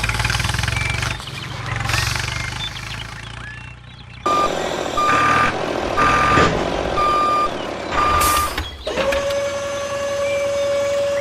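Vehicle reversing alarm beeping, five beeps about a second apart. A low vehicle rumble comes before it, and a steady high whine starts after it.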